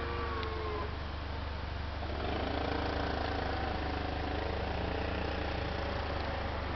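Honda Edix's aftermarket hydraulic suspension letting the body down: a steady whine from the hydraulic system from about two seconds in, over a low steady hum.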